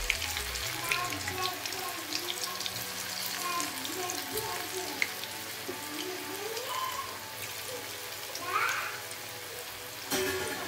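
Alu vadi slices deep-frying in hot oil in a kadhai: a steady sizzle with frequent small crackles. A short metallic clatter comes near the end.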